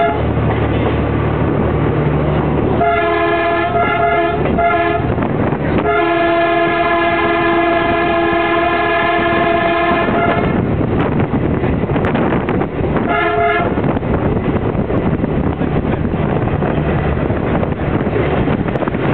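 Diesel railcar's horn sounding while under way: two or three short blasts, then one long blast of about four seconds, then a short one. Under the horn the railcar's engine and its wheels run steadily over the rails.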